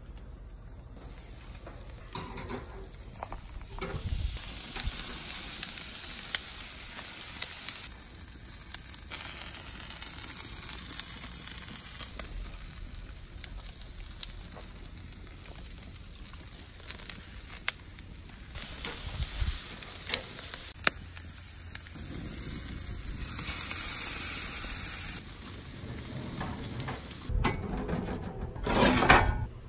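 Beef short ribs and sausages sizzling on a grill grate over glowing charcoal, with frequent sharp crackles and pops from the fire. The sizzle swells and drops at several points, and a few louder knocks come near the end.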